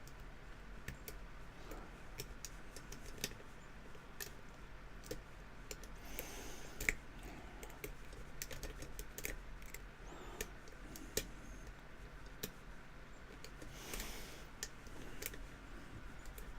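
Faint, irregular small clicks and a few short scrapes of a lock pick and tension wrench working the pins inside a padlock during single-pin picking.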